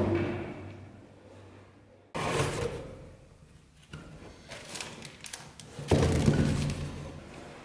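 A cardboard box being handled and its lid lifted open: three sudden thuds, each dying away over a second or so, with lighter scraping and rustling of cardboard between them.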